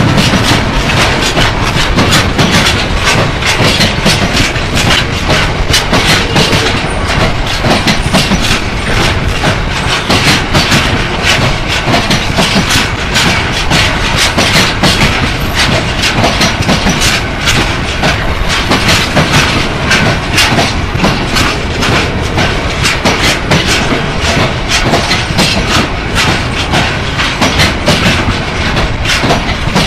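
A train of IIA-D biomass bogie hopper wagons rolls past close by, its wheels clicking steadily over the rail joints with a continuous rumble.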